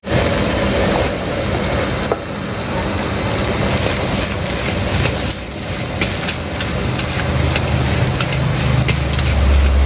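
Fried rice being stir-fried in a steel wok: a steady sizzling rush, with the metal spatula and ladle scraping and clinking against the wok now and then. A low rumble swells near the end.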